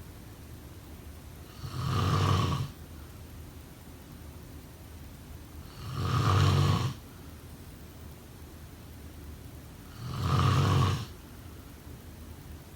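A person snoring: three loud snores about four seconds apart, each lasting about a second, with steady faint hiss between them.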